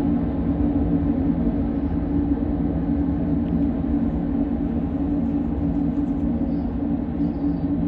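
Freight train going by: a steady low rumble with a constant droning hum that does not change.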